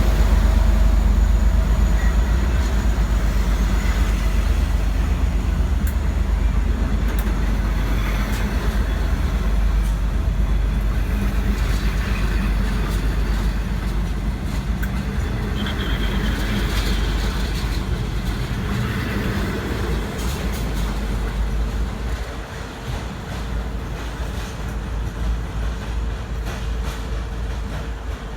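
V/Line N class diesel-hauled passenger train running out of the station: a heavy low rumble with the rolling of the carriages, slowly growing quieter as the train pulls away.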